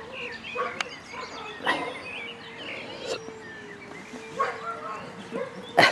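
A dog barking a few short times, the loudest bark near the end.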